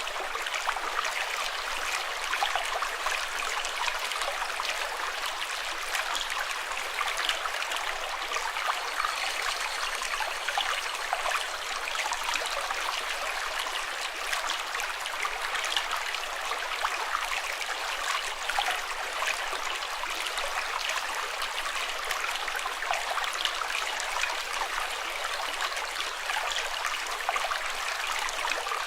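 Running water flowing steadily with a constant rush and fine splashing and trickling, as from a small stream.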